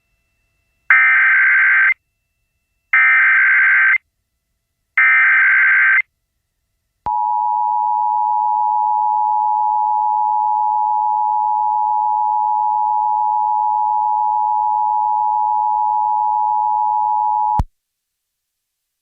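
Emergency Alert System activation tones. The SAME digital header is sent three times as short, modem-like chirping bursts about a second long, then the two-tone EAS attention signal sounds as one steady, harsh tone for about ten seconds and cuts off suddenly. Together they mark the start of an emergency alert, here a severe thunderstorm warning.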